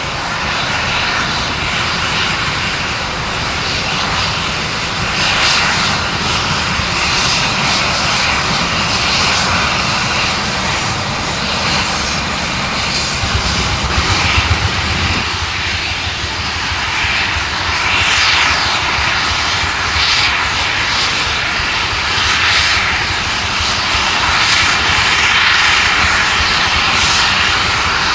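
Metre-gauge steam locomotive hauling a passenger train past, its exhaust chuffing over the steady rumble of the train on the rails; the low rumble is heaviest about halfway through, and the chuffs stand out as a regular beat in the later part.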